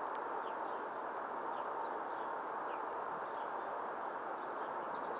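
Faint short bird chirps, repeating every second or so, over a steady rushing background noise.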